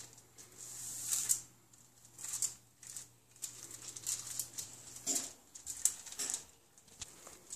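Wax paper rustling and crinkling in short, irregular bursts as hands unroll and press out croissant roll dough on it.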